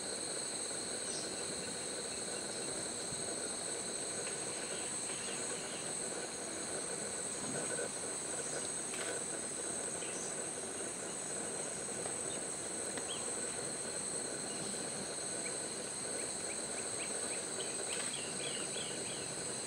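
Rainforest insects droning in a steady, unbroken chorus of several shrill tones, with a few faint short chirps near the end.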